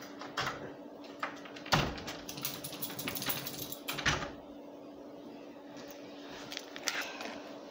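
Scattered clicks and knocks of an interior door being handled and shut, with footsteps on carpet; one louder knock a little under two seconds in and another about four seconds in. A faint steady hum runs underneath.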